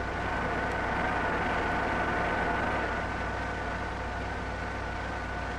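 Vertical boring mill running through a finish facing cut on a cast flange: a steady machine hum with a high, slightly wavering whine. It sits over the low hum and hiss of an old film soundtrack.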